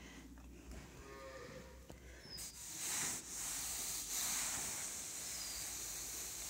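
A hand rubbing across the terry-cloth top of a waterproof mattress protector: a steady brushing hiss that starts about two and a half seconds in.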